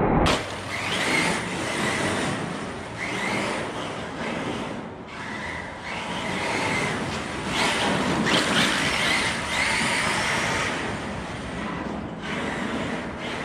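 Arrma Notorious RC truck's Spektrum 1250kv brushless motor whining up and down in repeated bursts of throttle, one every second or two.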